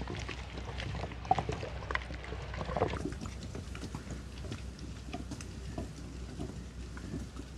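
A round stone pestle worked by hand in a stone grinding mortar, mashing cooked rice into a thick batter: continuous wet squelching and scraping, full of small sticky clicks.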